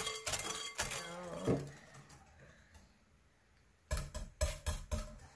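Kitchen utensils clinking against a mixing bowl as cookie dough is worked. After a quiet pause, a quick run of about five sharp knocks comes near the end.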